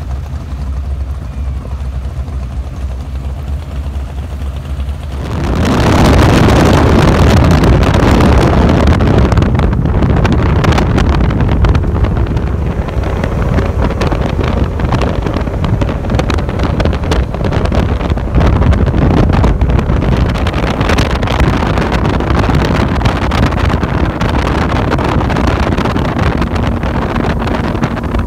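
Outboard-powered speedboats running at speed across the water. About five seconds in, a loud rush of wind and spray on the microphone jumps up and then stays, largely covering the motors as the boats run side by side.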